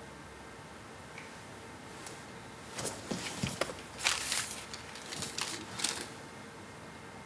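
Sheets of paper rustling and being handled, with a few soft knocks of movement, in several short spells from about three to six seconds in, over a faint steady hiss.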